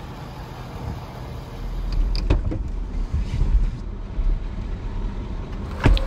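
Pickup truck engine running at low speed while moving an Airstream travel trailer on a gravel driveway, a low rumble that grows louder about a second and a half in, with a few short knocks.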